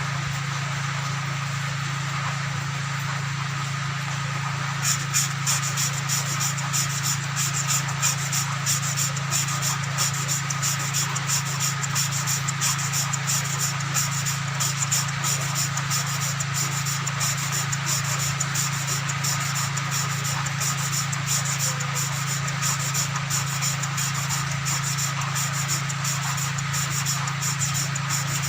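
A valve of a Sogo 13 hp engine being lapped into its seat with grinding compound: from about five seconds in, a fast, continuous gritty scraping as the valve is twisted back and forth against the seat. A steady low hum runs underneath.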